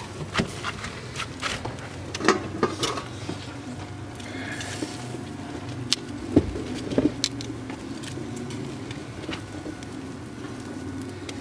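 Meat sizzling on a small charcoal grill, with scattered sharp pops and clicks of fat and metal tongs on the grate as chicken drumsticks are turned. A steady low hum runs underneath.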